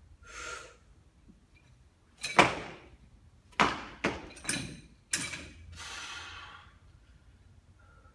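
Heavily loaded barbell, about 340 lb, clanking and rattling through a jerk: one loud sharp clank about two seconds in as the bar is driven overhead, then four quicker clanks and thuds over the next few seconds as it is caught and lowered back to the shoulders.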